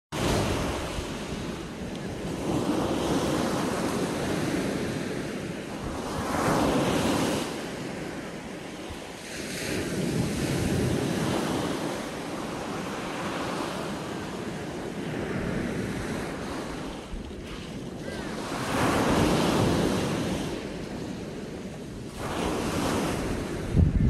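Small sea waves breaking and washing up a sandy shore, the surf swelling and ebbing about every four seconds.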